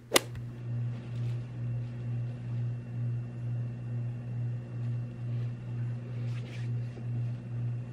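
A steady low hum that swells and fades in an even rhythm, with a sharp click at the very start.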